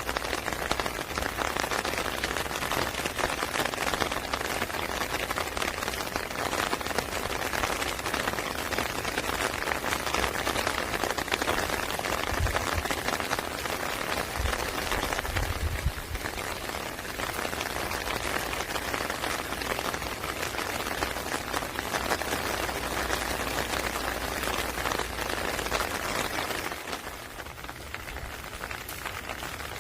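Rain falling steadily, a dense patter of raindrops on hard surfaces. It eases slightly near the end, and there are a couple of low thumps about halfway through.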